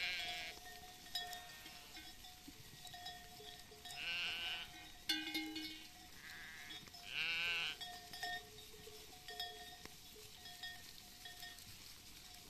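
A grazing flock of sheep bleating about five times, the loudest calls a few seconds in and past the middle, over the steady light clinking of sheep bells.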